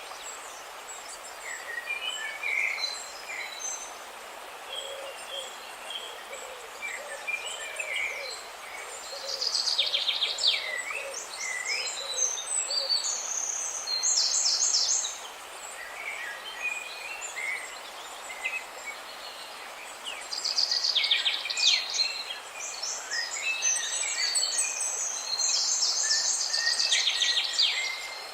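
Several songbirds chirping and trilling, with bursts of fast repeated high notes about ten seconds in and again through the last third, over a steady background hiss.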